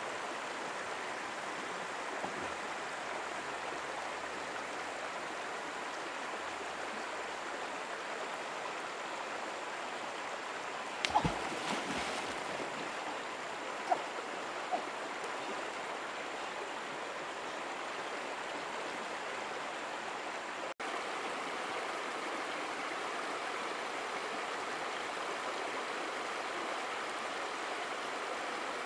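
Shallow river running over rocks: a steady rushing of water, with a few short sharp sounds near the middle.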